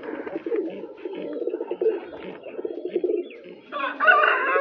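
Domestic fancy pigeons cooing in a pulsing, continuous warble, with a louder, higher-pitched call about four seconds in.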